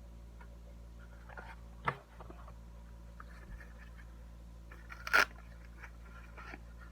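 Hands handling the multi-tool's box and packaging: scattered rustles and scrapes, a sharp knock about two seconds in and a louder, brief crunch about five seconds in.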